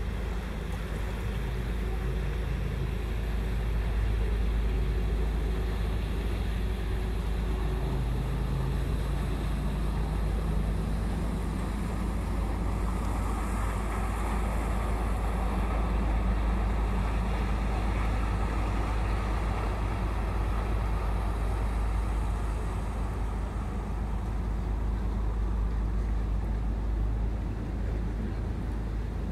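Lake passenger ship's engine running steadily as the ship pulls away from the pier and passes by. A broad rushing noise swells midway as it goes past.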